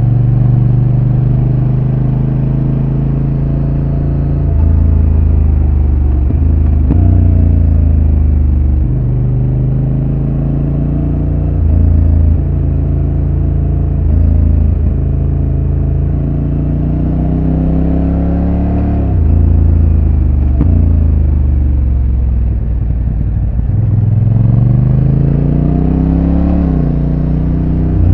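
Honda NT1100's parallel-twin engine on its stock exhaust, heard on board while riding: the engine note rises and falls with throttle and speed, climbing in long rising sweeps and dropping sharply a few times.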